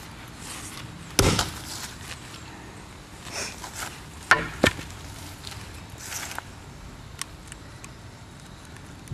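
A single heavy axe blow strikes a broken mobile phone lying on grass about a second in. A few seconds later come two sharp clicks as the smashed pieces are handled, with light rustling in the grass.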